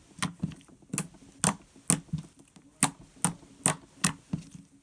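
Clear-glue slime being pressed and squished with the fingers, giving sharp wet clicks and pops about two to three times a second at uneven spacing.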